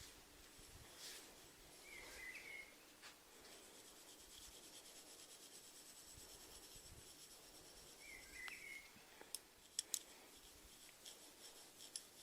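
Near silence: a faint steady hiss with two short chirps, about two seconds in and again about eight and a half seconds in, and a few soft sharp clicks around ten seconds in.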